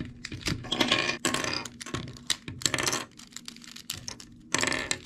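Plastic pieces of a Qiyi void cube clicking, snapping and clattering as corners and edges are twisted and pried off. The clicks come thick for the first three seconds, ease off, then come again in a burst near the end.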